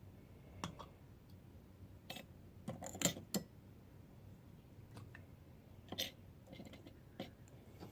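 Scattered light clicks and clinks of small silver pieces and metal tools against a dish while they are dipped and stirred in denatured alcohol with boric acid, loudest about three seconds in.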